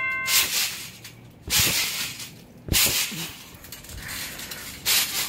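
Someone bouncing on a trampoline: each landing gives a low thump and a rush of noise from the mat and springs, about once a second.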